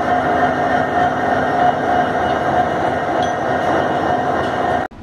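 Indian Railways diesel locomotive running close by, a loud steady engine drone with a sustained whine on top. It cuts off suddenly near the end.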